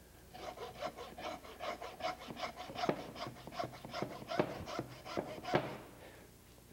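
Handsaw sawing through a lamb loin to split it down the backbone, in quick back-and-forth strokes of about three a second that rasp through the bone. The sawing stops near the end.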